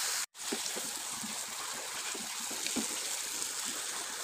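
Potato sticks frying in hot oil in a kadai: a steady sizzle with faint crackles, cutting out for an instant near the start.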